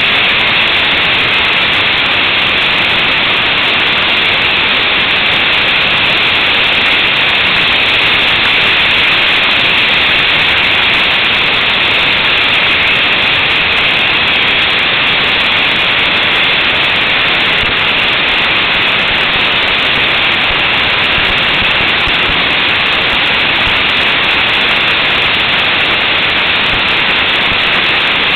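Wind noise on an action camera's microphone on a moving motorcycle at road speed: a loud, steady rush of noise with no distinct engine note.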